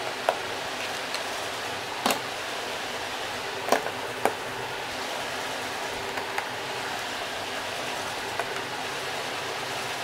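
Small skincare bottles and jars being set down into a vanity drawer's storage trays: a handful of light, sharp clicks and taps spread out over a steady hiss.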